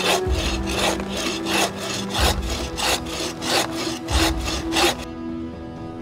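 Hand saw cutting through a branch in steady back-and-forth strokes, about three a second, which stop about five seconds in. Quiet background music plays underneath.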